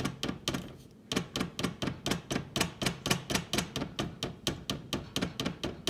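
Rapid, even tapping, about six taps a second: a white-chocolate-dipped marshmallow on a stick knocked against a metal spoon over a stainless saucepan to shake off the excess melted chocolate. A faint low hum runs underneath.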